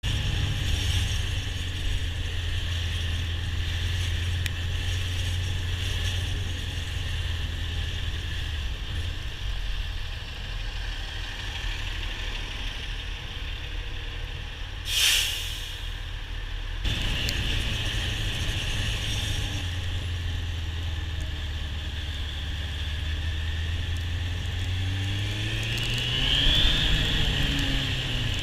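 Suzuki GSF1200 Bandit's inline-four engine running steadily at low revs. About halfway through, a bus alongside gives a short, loud hiss of air brakes. Near the end the engine revs up as the bike accelerates.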